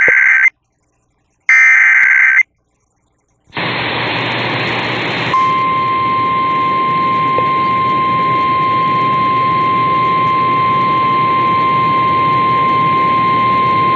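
Emergency Alert System broadcast: two short bursts of screeching digital data tones (the SAME header), a second apart, with silence between them. Then a steady hiss comes in, and about two seconds later the steady single-pitch National Weather Service alert tone near 1 kHz sounds over it for about nine seconds.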